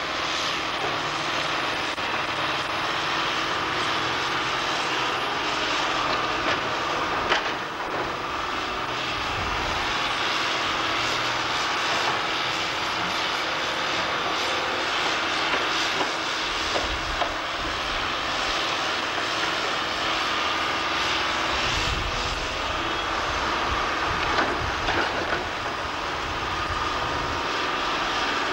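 Poclain tracked hydraulic excavator's engine running steadily among demolition rubble, with a few sharp knocks of debris.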